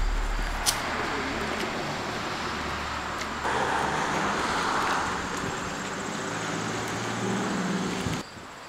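Road traffic going by, with one vehicle passing louder around the middle. The sound drops off sharply near the end.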